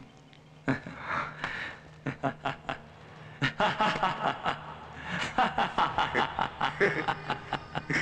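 A man laughing, in short separate bursts at first and then more continuously from about three and a half seconds in.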